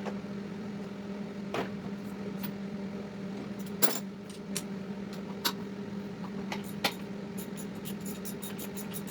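Hand tools clinking against metal engine parts, a few separate sharp clicks, then about three-quarters of the way in a quick, even ticking, roughly five a second, over a steady low hum.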